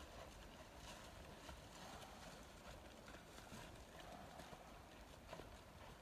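Faint hoofbeats of a barefoot gaited mule walking on a dirt trail: soft, irregular footfalls.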